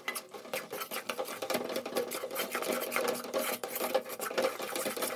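Metal ladle scraping and stirring a thick, crumbly paste of ground roasted gram and sugar syrup around an aluminium kadai, in quick repeated scraping strokes against the pan.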